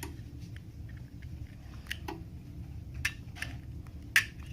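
Small clicks and crackles of cracked glass being pried and peeled off a Samsung Galaxy S4's screen, with a louder sharp click about four seconds in, over a low steady hum.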